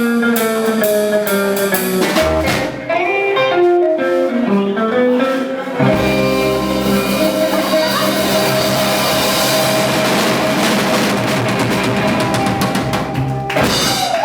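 Live band with electric guitar and drum kit playing a run of notes, then about six seconds in the whole band hits and holds a closing chord with cymbals ringing, which stops just before the end.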